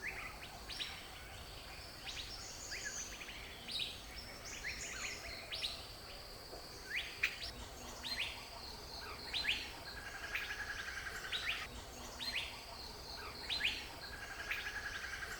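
Forest birds calling: short, sharply rising notes repeated every second or so, with a few buzzy trills. Under the calls runs a steady high insect drone.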